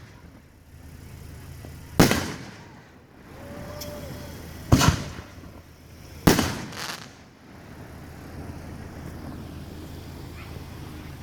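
Fireworks going off in sharp, loud bangs, each trailing off in a short rumbling echo. There are four in all: one about two seconds in, one near the middle, then two in quick succession. After that only a steady background hum remains.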